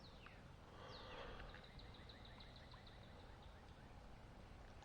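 Faint bird song: a single falling note, then a rapid run of short, even, high chirps lasting under two seconds, over quiet outdoor background noise.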